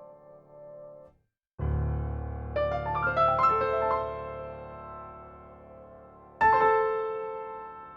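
Piano music: after a brief break, a deep low note, a quick rising run of notes, then a loud chord about six seconds in that rings and slowly fades.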